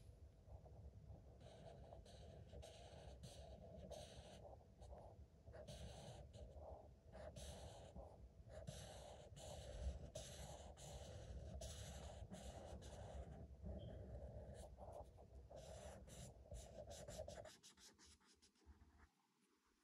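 Green felt-tip marker scribbling on paper in repeated faint back-and-forth strokes as it colours in a shape, stopping near the end.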